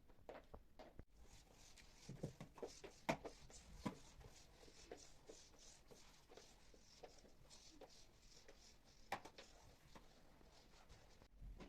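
Near silence with faint, scattered light taps and rustles of household objects being handled, a few slightly sharper clicks among them.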